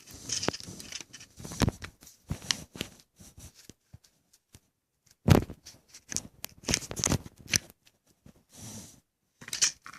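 Metal clicks and short scrapes from handling a Walther .22 LR Uzi with its top cover open, as the bolt is pulled back and parts shift. The sharpest click comes about five seconds in, with a quick run of clicks a second or two later.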